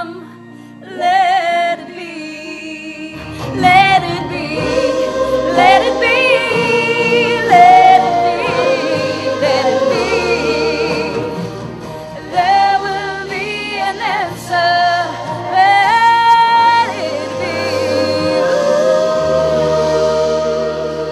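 Live performance by a young vocal group: a girl sings lead into a microphone with vibrato, and other young voices join in, over an instrumental accompaniment with a steady low bass line. The accompaniment fills out and gets louder about three seconds in.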